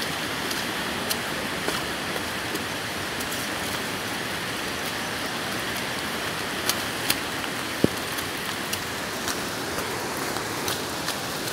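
Steady rain falling, with scattered drops tapping sharply close by.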